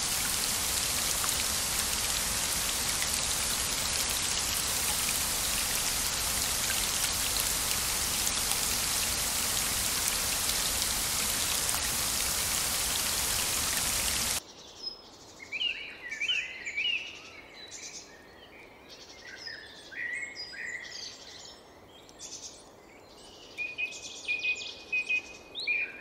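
Steady rain hiss that cuts off suddenly a little past halfway, giving way to birds chirping in short quick calls, with a longer trilling call near the end.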